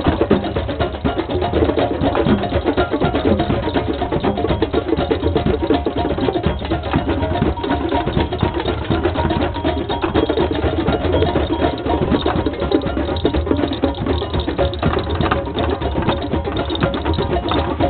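A drum circle: many hand drums struck together in a dense, fast, unbroken rhythm.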